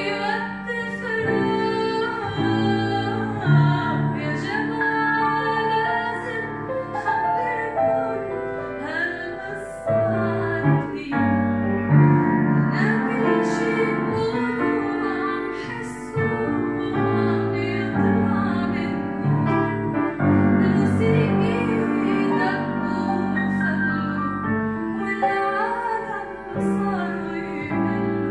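A woman singing an Arabic song with a grand piano accompanying her.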